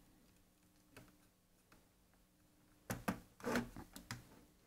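Handling noise from a car's plastic gauge cluster being pressed back together: a few faint clicks, then a louder run of plastic clicks and rustling about three seconds in.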